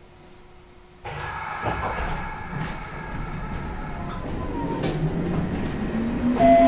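Toyama Chiho Railway 14760 series electric train heard from inside the car as it pulls away. About a second in, the noise jumps up sharply, and from about four seconds in the whine of its Toyo Denki TDK-8205A traction motors and gears climbs steadily in pitch as the train gathers speed, with a few sharp clicks along the way.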